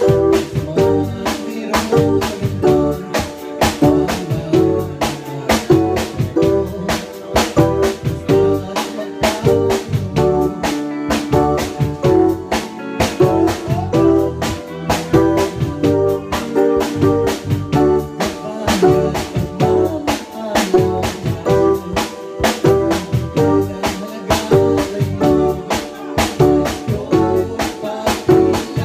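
Live band playing music: electric bass and electric guitar over a steady drum beat.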